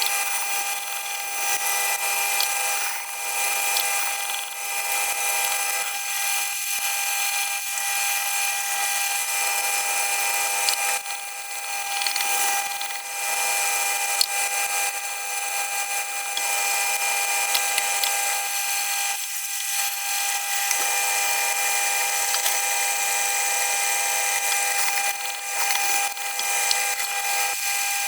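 JET water-cooled sharpening machine running with a steady motor hum, while a steel knife blade is ground against its wheel. The grinding hiss swells and fades as the blade is drawn across, with short breaks where the blade is lifted off.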